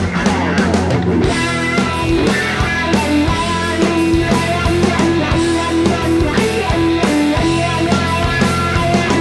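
Indie rock band playing an instrumental passage with no vocals: guitars to the fore over a steady bass line and regular drum hits.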